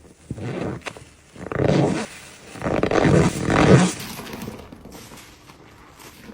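Wet sponge squeezed by hand, squeaking and squelching in three strokes, the third the longest and loudest, then quieter squeezing.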